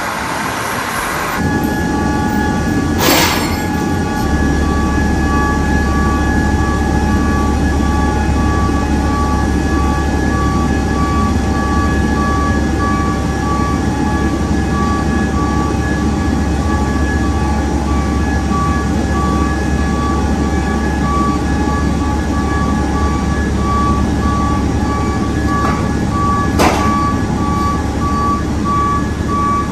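Fire truck reversing with its backup alarm beeping over and over, over a steady low engine hum. Two sharp knocks, one about three seconds in and one near the end.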